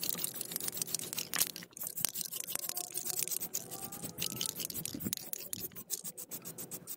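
Aerosol can of Rust-Oleum 2X Ultra Cover primer spraying a brake caliper, a sputtering hiss in many short, rapid spurts.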